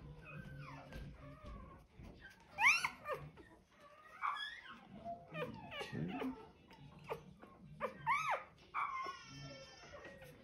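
Four-day-old German Shorthaired Pointer puppy crying in a run of high squeals that rise and fall in pitch, loudest about two and a half seconds in and again near eight seconds.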